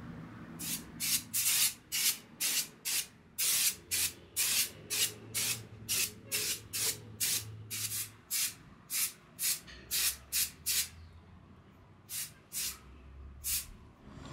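Aerosol can of silicone spray hissing in short squirts, about two a second, then a short pause and three more squirts near the end.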